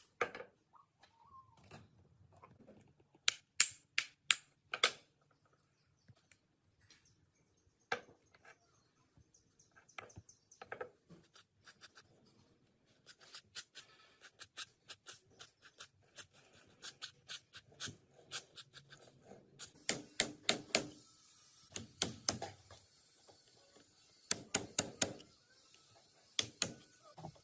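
Irregular sharp clicks and knocks from hand work with tools on small parts. Runs of rapid ticking come in the middle, and louder clusters of knocks come near the end.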